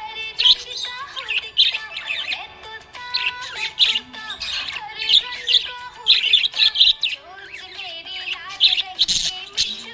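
Budgie chirping and squawking in a rapid, busy stream of short high chirps.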